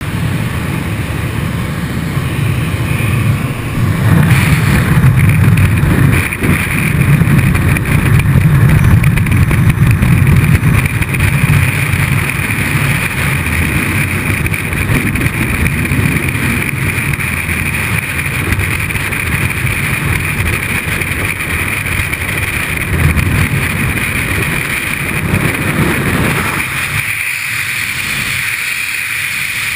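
Light aircraft engine and slipstream noise in the open door of a Cessna 206. About four seconds in it gives way to a loud, steady rush of freefall wind buffeting a helmet-mounted GoPro. Near the end the low rumble drops away sharply as the parachute opens and the fall slows.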